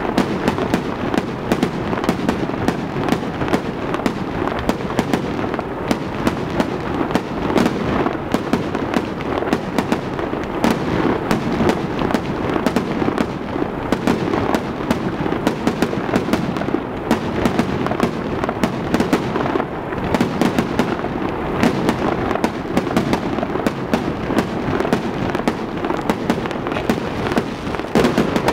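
Fireworks going off without a break: a dense crackle of many sharp bangs and pops, several every second.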